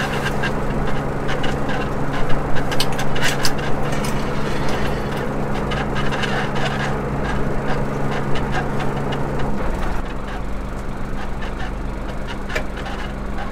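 Fishing boat's engine running with a steady low hum that changes about ten seconds in, as some of its lower tones drop away. Scattered clicks and knocks from deck gear come in the first few seconds.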